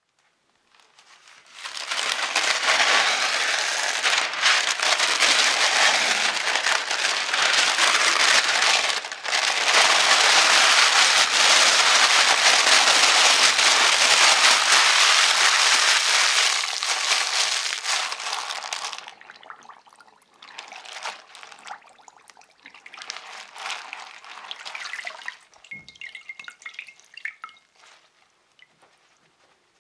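Parchment baking paper being crumpled by hand, a loud, dense crinkling that lasts most of the first two-thirds. After that it turns to quieter, broken rustling and squishing as the paper is soaked and squeezed out in a glass bowl of water, with water dripping back into the bowl near the end.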